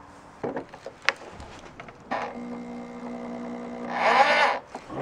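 Power drill driving a Speed Out extractor bit in reverse on a stuck, rusted bolt. After a couple of clicks, the motor runs with a steady whine for about two and a half seconds, turning louder and rougher with a grinding rasp near the end before it stops.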